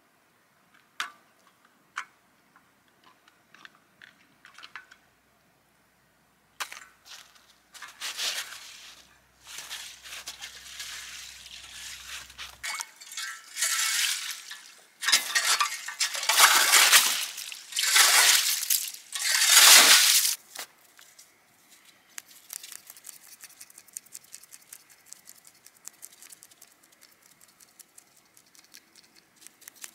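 Hand ice auger worked in a slush-filled ice-fishing hole: a run of loud, watery swishing strokes about halfway through. Before and after them come scattered clicks and fine crunching of ice.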